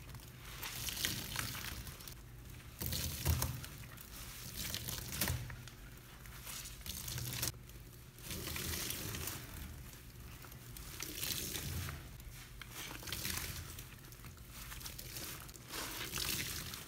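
Rubber-gloved hands squeezing and rubbing sponges packed with powdered laundry detergent: a gritty, scratchy rasp in uneven strokes with brief pauses between them.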